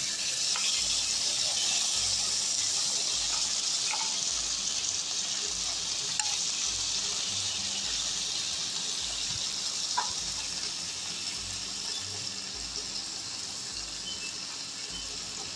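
Hot ghee sizzling as boiled corn kernels are tipped into the kadhai, the sizzle slowly dying down as the pan cools under the added corn. A few light clicks sound along the way.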